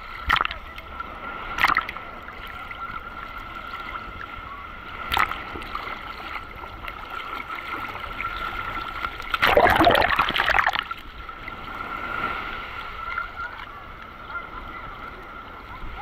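Sea waves sloshing and splashing against a camera held at the water's surface, heard muffled. There are a few sharp splashes in the first five seconds and a louder rush of water over the camera about ten seconds in.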